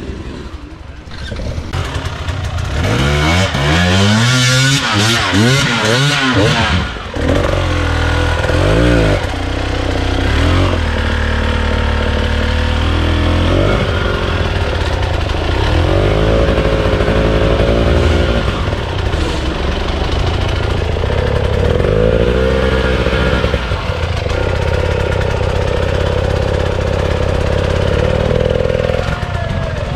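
Enduro motorcycle engines revving hard, the pitch climbing and dropping repeatedly as the throttle is worked, with more than one engine overlapping early on. Near the end the revs are held high and steady for several seconds.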